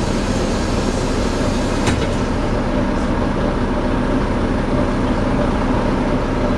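Volvo B9TL double-decker bus in motion, its rear axle giving a steady low drone over the running rumble: the bad axle noise of this bus. A single short knock sounds about two seconds in.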